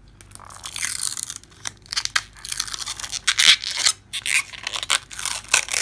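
Blue protective plastic film being handled and peeled off a new metal nail-stamping plate: an irregular run of crackling and tearing.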